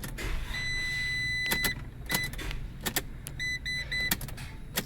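Dodge ProMaster van's starter motor cranking the engine over briefly, with repeated electronic beeps and several sharp clicks. The engine turns, a sign it is not locked up.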